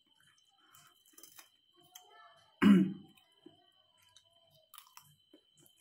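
A man chewing a mouthful of fried rice, with faint mouth and spoon clicks, and one short loud vocal sound about two and a half seconds in.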